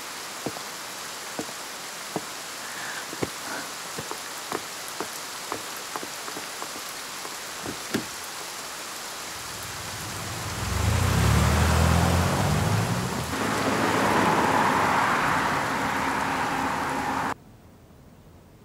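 Steady heavy rain with scattered sharp drips tapping. About ten seconds in, a car's engine rumbles and its tyres hiss on the wet road. Near the end everything cuts off suddenly to quiet room tone.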